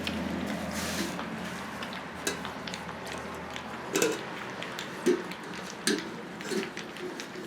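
Several young puppies lapping milk replacer from a dish: irregular wet licking, smacking and small clicks against the dish, with a few louder clicks about four, five and six seconds in.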